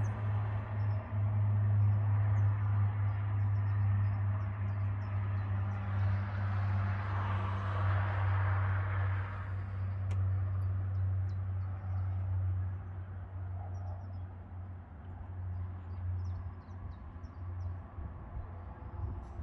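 Lockheed C-130J Super Hercules, four six-bladed turboprops, droning overhead as a deep, steady bass hum that slowly fades toward the end. Traffic noise swells and passes about a third of the way in, and small birds chirp faintly.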